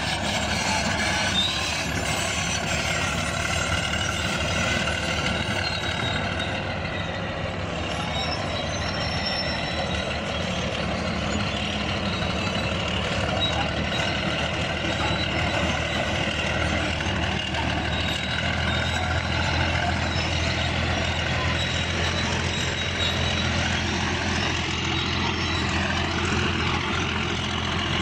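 Bulldozer's diesel engine running steadily under work, its low hum growing stronger about eleven seconds in.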